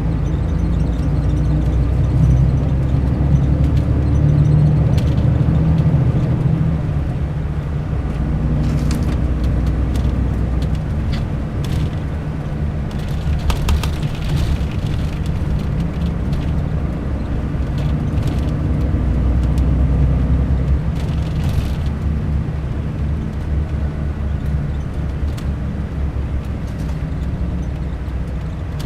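Mercedes-Benz O500 RSD coach's diesel engine running with a steady low rumble that swells twice. A few short, sharp sounds stand out above it.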